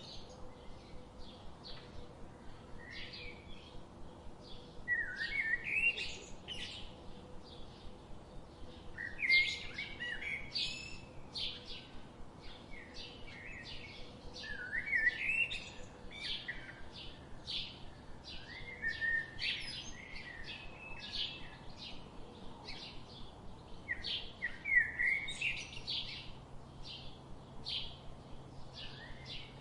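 Songbirds chirping: a steady run of short, high chirps several times a second, broken every few seconds by a louder warbling phrase that zigzags up in pitch.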